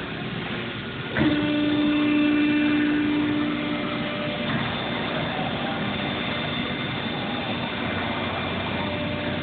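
Industrial machinery running with a constant mechanical noise; about a second in, something starts with a sudden thump and a steady hum that holds for about three seconds before dropping back into the running noise.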